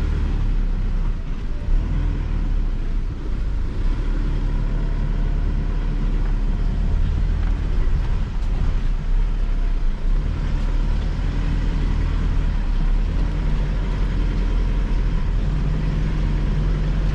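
Mitsubishi L200 Triton pickup's engine pulling steadily at low revs in first gear low range with four-wheel drive engaged, crawling slowly up a steep dirt slope, with a few short knocks from the truck working over the rough ground.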